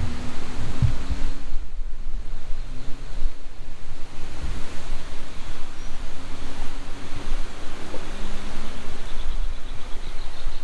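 Ford Maverick's 2.0-litre EcoBoost turbo four-cylinder running while the truck is driven, over a steady rush of road and wind noise. The engine note fades about one and a half seconds in and comes back later, and there is a low thump just under a second in.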